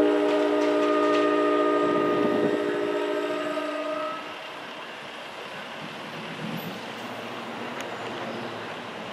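New Jersey Transit commuter train's horn sounding a chord, held and fading out about four seconds in. After it comes the faint rumble of the approaching train.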